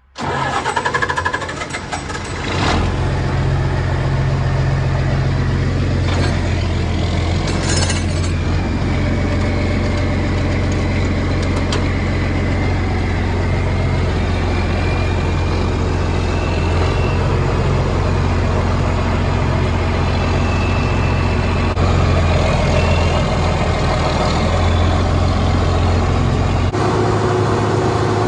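John Deere 4320's turbocharged six-cylinder diesel cranking and catching about two and a half seconds in, then running steadily as the tractor drives off, with a faint high whistle coming and going over it. The engine note changes near the end.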